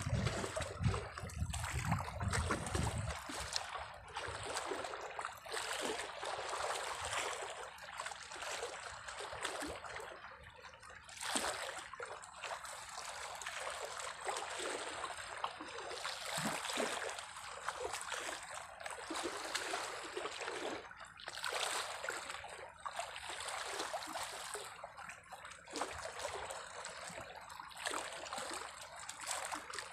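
Small waves lapping and trickling against submerged rocks at the water's edge, swelling and easing every few seconds.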